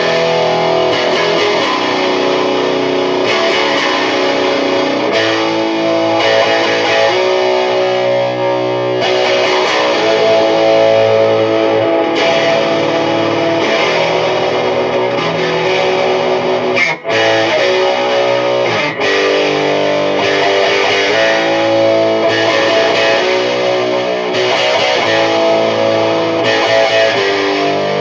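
Heavily distorted electric guitar riffing through a Mesa/Boogie Dual Rectifier amplifier at high gain, tuned to drop B, with the Bare Knuckle Painkiller bridge pickup split to single-coil mode, picked up through a camera's built-in microphone. The playing breaks off for a moment about 17 seconds in.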